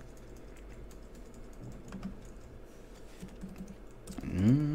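Typing on a MacBook laptop keyboard: a quick, quiet run of key clicks.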